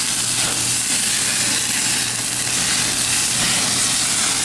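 Steady sizzling hiss of beef burger patties searing on the grates of a gas grill over open flame.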